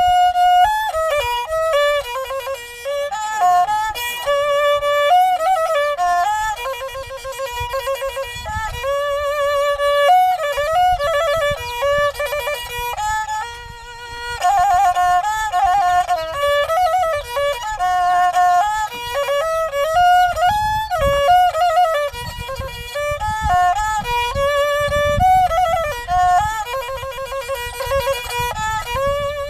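Khmer tro, a two-string upright fiddle, played solo: a high bowed melody with wavering vibrato and slides between notes. The playing eases off briefly about fourteen seconds in, then carries on.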